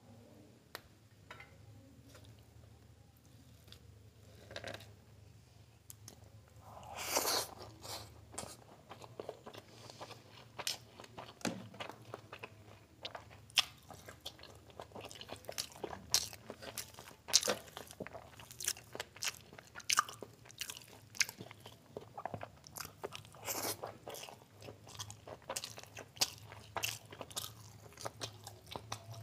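Close-miked eating of mutton biryani by hand: chewing with many short, sharp mouth clicks, a few each second. Fairly quiet for the first few seconds, with a louder burst about seven seconds in, then chewing clicks throughout.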